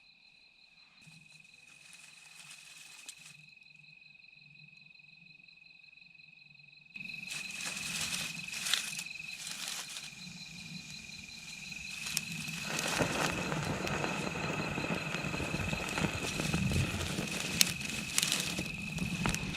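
Insects calling with one steady high trill throughout. About seven seconds in, the background noise jumps up abruptly, and from about thirteen seconds a louder rustling hiss with scattered clicks joins in.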